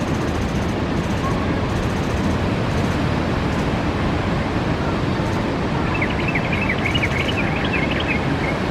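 Steady rushing noise of ocean surf and wind on the microphone. About six seconds in, a quick run of short high chirps lasts for roughly two seconds.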